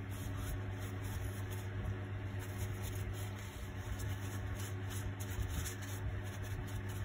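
Tissue paper rubbing and scrubbing over a plastic model figure, with soft rustling and handling noise, over a steady low hum.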